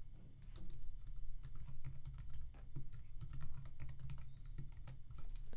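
Typing on a computer keyboard: a run of quick, irregular keystrokes as a name is typed in.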